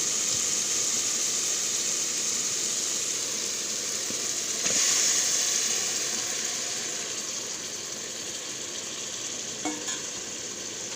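Hot onion-tomato masala sizzling in a cooking pot. The sizzle swells suddenly about five seconds in, as the raw chicken pieces go into the hot gravy, then slowly dies down, with a light clink of a utensil near the end.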